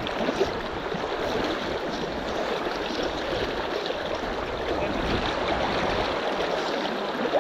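River water rushing and splashing over rocks in a fast, shallow current: a steady, even rush.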